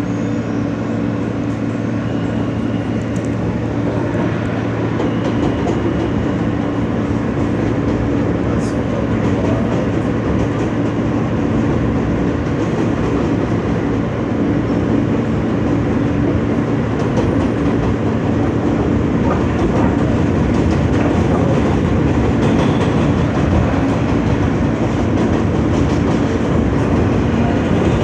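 Interior of an R160 New York subway car in motion between stations: steady low hum with wheel and rail noise and clickety-clack, growing slightly louder as the train picks up speed.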